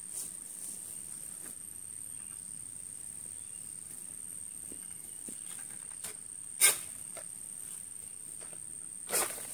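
Steady high-pitched insect drone, with one sharp crack about two-thirds of the way through and a smaller one near the end.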